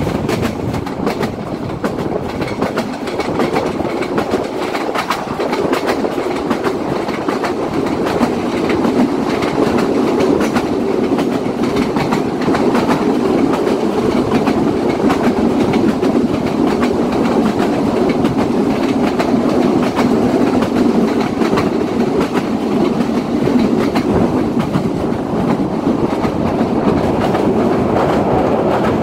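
Bangladesh Railway Kurigram Express passenger train running at speed, heard from a carriage window: a steady rumble with the clickety-clack of wheels over the rail joints, growing louder over the first several seconds.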